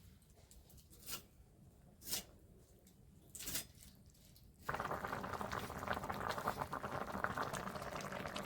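A few faint pops, then, about halfway through, a pot of thin curry starts bubbling steadily at the boil, a dense crackling simmer.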